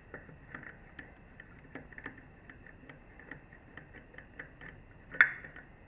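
Socket ratchet clicking in a quick run of light ticks, about three or four a second, as the lug bolts on a BMW R1200 GS rear wheel are backed out, with one much louder clack about five seconds in.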